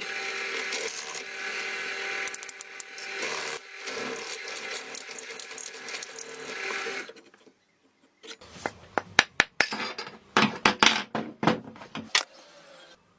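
A workshop tool runs steadily for about seven seconds, with a brief dip partway through. It stops, and after a short pause come a rapid, irregular series of sharp knocks and clatters.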